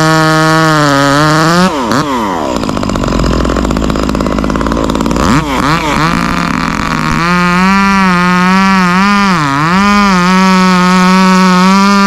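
Chainsaw engine running at high revs. About two seconds in, its steady high note breaks up into a rough, noisier sound for about five seconds, then the saw revs high and steady again, with one brief dip near the end.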